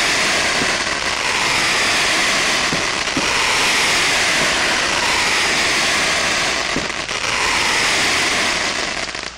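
A ground fountain firework spraying sparks: a loud, steady hiss with a fine crackle for about nine seconds, cutting off shortly before the end.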